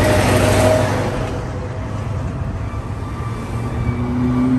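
KamAZ diesel truck driving past close by, its engine and tyre noise loudest in the first second and then easing off, followed by lighter road traffic as cars pass.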